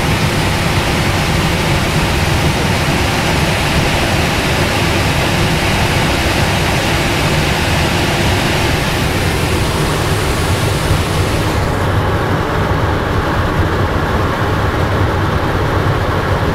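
Steady loud rush of air over the canopy and airframe of an all-metal IS28B2 glider, heard from inside the cockpit during a high-speed descent. The higher part of the hiss drops away about two-thirds of the way through.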